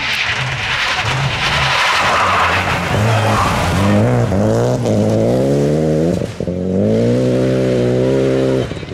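Renault Clio rally car driven flat out on a loose surface. At first the hiss of tyres and thrown gravel covers the engine. Then the engine revs up hard, with two quick dips at gear changes, and holds high revs.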